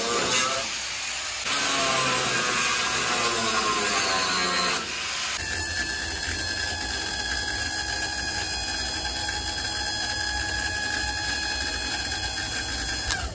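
Angle grinder cutting through tack welds on steel, easing off briefly about half a second in and then biting back in. From about five seconds in it runs as a steady high whine over a low rumble, and winds down in pitch as it is switched off at the end.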